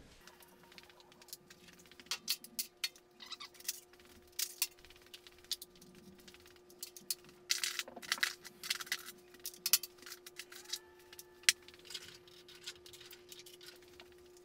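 Irregular clicks, knocks and rattles of hand tools and plastic bodywork as the tail section of a Honda VF1000F motorcycle is unfastened and worked loose, busiest in the middle, over a faint steady hum.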